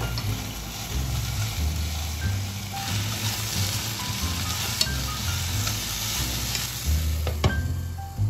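Food sizzling in a frying pan as it is stirred, the hiss swelling in the middle, with a couple of sharp knocks. Soft background music plays beneath.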